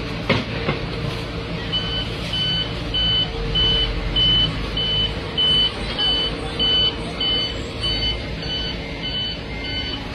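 Construction vehicle's reversing alarm beeping steadily, a little under two beeps a second, starting about two seconds in, over the low hum of diesel paving machinery. A sharp knock sounds just after the start.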